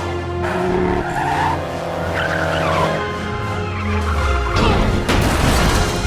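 Race car engines and tyre skids over an orchestral film score, with several surges of screeching noise as cars slide out of control.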